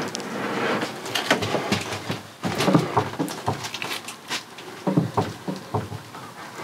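Irregular knocks and bumps of a 12 V camper fridge being manoeuvred into its cabinet space.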